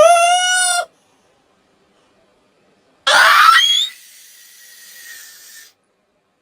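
Cartoon character's high-pitched voice sneezing: a held 'ah' that breaks off just under a second in, a pause, then a loud noisy 'choo' about three seconds in that trails off quietly.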